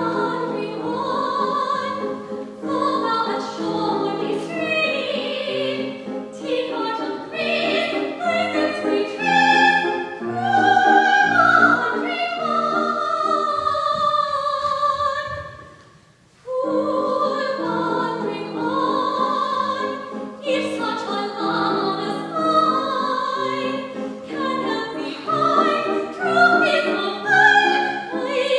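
Operatic singing with grand piano accompaniment in a live stage performance. The music breaks off briefly a little past halfway, then resumes.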